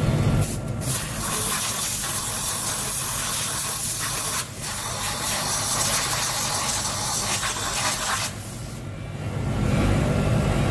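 Compressed-air blow gun blasting air over a turquoise-inlaid copper vessel to blow it clean: a loud hiss in two long blasts, with a short break about four and a half seconds in, stopping about eight seconds in.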